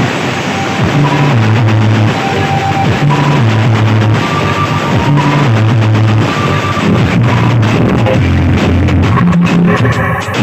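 Loud music with a heavy bass line stepping from note to note, played through a miniature sound system, with a brief drop in level near the end.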